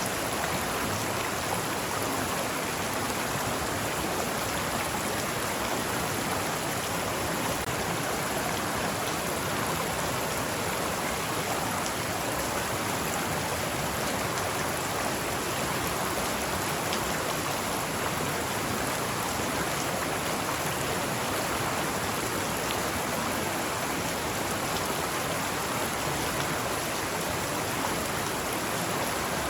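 Forest stream flowing, a steady, even rush of water with no breaks.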